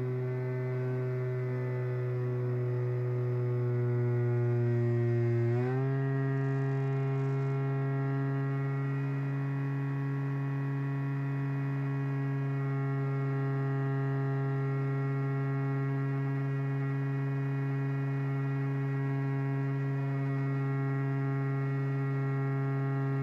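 Steady whine of an FPV wing's electric motor and propeller heard in flight. About six seconds in, the pitch steps up quickly as the throttle is raised, then holds steady.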